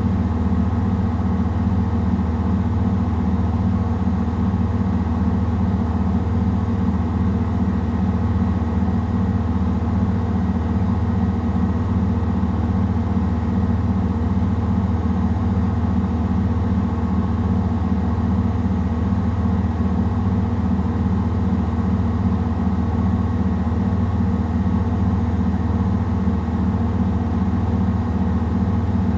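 Samsung WW70T4020EE front-loading washing machine spinning a load of clothes on its 1200 rpm spin, running at a steady speed with a loud low hum and a fast, even pulsing.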